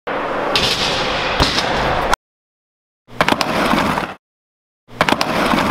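BMX bike riding on concrete, tyres rolling with a noisy hiss and several sharp knocks and thuds from the bike hitting the ground. The sound cuts off abruptly twice, leaving dead silence between short bursts.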